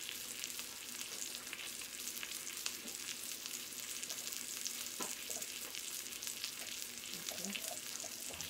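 Salmon fillet searing in hot oil in a cast-iron skillet: a steady sizzle with many small crackles and pops.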